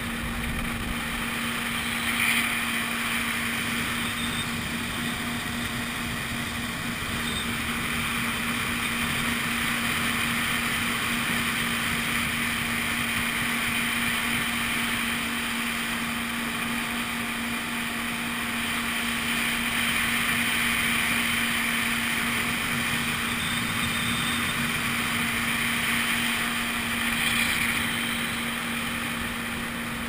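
Personal watercraft (jet ski) engine running steadily while cruising, a steady drone under a broad hiss, with brief louder swells about two seconds in and again near the end.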